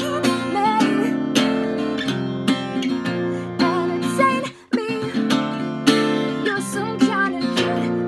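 Acoustic guitar strummed in a steady rhythm, with a voice singing along softly above it. The strumming breaks off briefly about halfway through, then picks up again.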